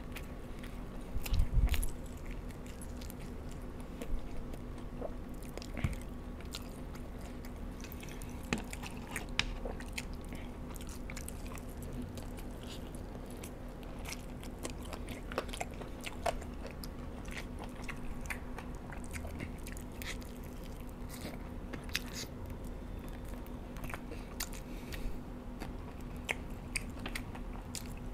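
A man biting into and chewing chicken wings close to the microphone, with many short wet smacking clicks. There is a louder low thump about a second and a half in.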